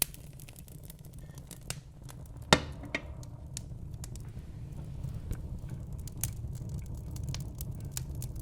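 Wood fire burning in a fireplace: a steady low rumble of flames with scattered crackles and pops from the burning logs, one sharp pop about two and a half seconds in standing out as the loudest.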